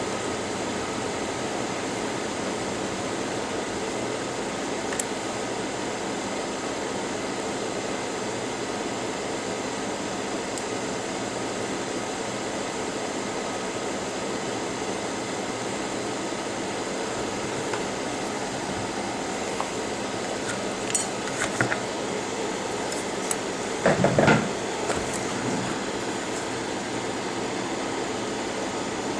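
Steady fan-like background noise, with a few light clicks late on and a short clatter about three-quarters of the way through.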